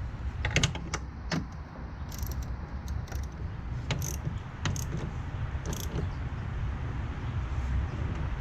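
Irregular metallic clicks and clinks of a ratchet and socket snugging up engine mount bolts, over a steady low hum.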